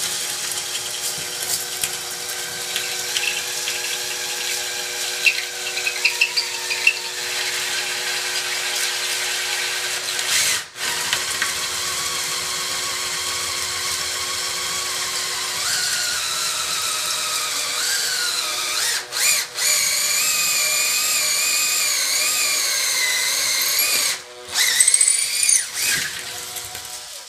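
Makita 18V cordless drill running almost continuously with the Wall Anka combination bit, its pilot drilling into the brick behind dot-and-dab plasterboard while the flat cutter cores a 25 mm hole. The motor whine holds steady, then wavers up and down in pitch under varying load in the second half. It stops briefly about ten seconds in and a few times near the end.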